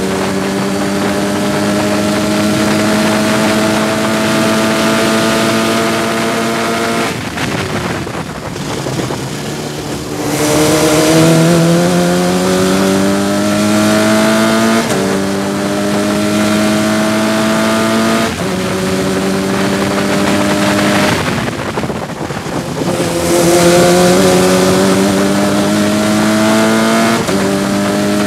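Sports 2000 race car's four-cylinder engine at full throttle, heard from the open cockpit. It is held at high revs, then lifts for a corner about seven seconds in. From about ten seconds it pulls hard again, the revs climbing and stepping down twice as it shifts up. It holds steady before a second lift about three-quarters through, then climbs again through quick upshifts near the end.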